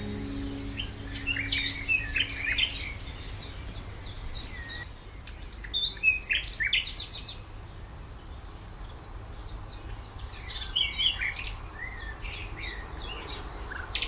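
Several small birds chirping and singing in short, overlapping calls and trills, with a steady low rumble underneath.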